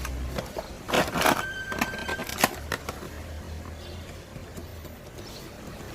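A few sharp plastic clicks and knocks, most of them about one to three seconds in, as a toy BB pistol is handled. A steady low hum runs underneath.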